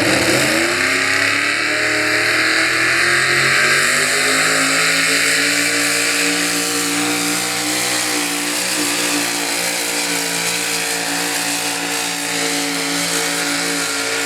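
Pickup truck engine at a truck pull, climbing in revs over the first two seconds and then held at high, steady revs under heavy load.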